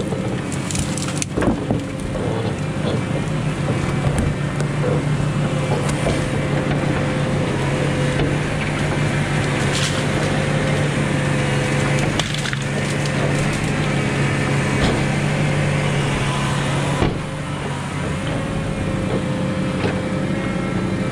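A crane grapple grabbing and compressing bundles of cut brushwood, the branches cracking and snapping now and then, over the steady hum of the engine driving the crane, with a faint whine.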